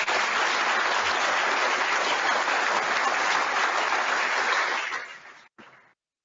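Audience applauding: dense, steady clapping that tapers off and fades out about five seconds in.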